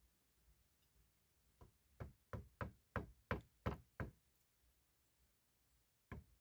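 A quick run of about eight sharp knocking blows, roughly three a second, then a single knock near the end.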